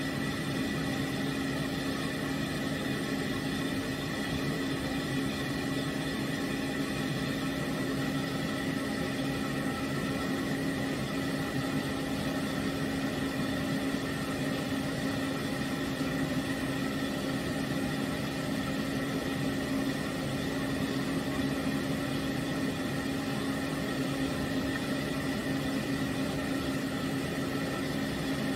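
Pet grooming stand dryer running, blowing air through its hose onto a small dog's coat: a steady electric blower with a constant low hum and a higher whine over the rush of air.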